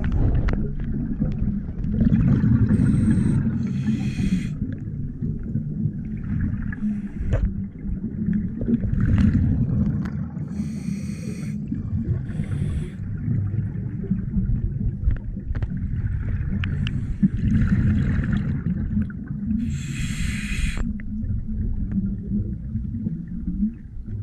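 Scuba regulator breathing underwater: hissing, bubbling breaths, each about a second long, come in clusters every several seconds over a steady low underwater rumble.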